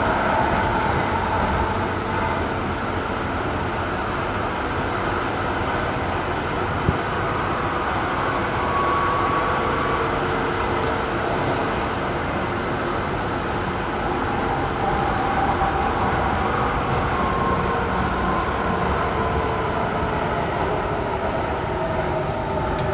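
Inside a 1988 DUEWAG B80D light-rail car running between stops: steady rolling rumble of wheels on rail, with a faint traction-motor whine that shifts slowly in pitch. A single short knock about seven seconds in.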